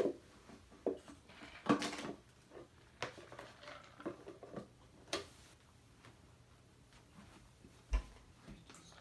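Handling noise from a Blu-ray box set and its case: scattered light clicks and knocks with a short rustle, and a low bump near the end.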